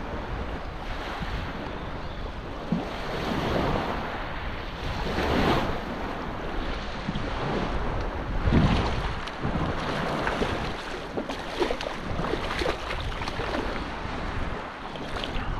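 Wind buffeting the microphone over small waves washing in the shallows, with a few short splashes from a hooked striped bass being drawn in at the surface.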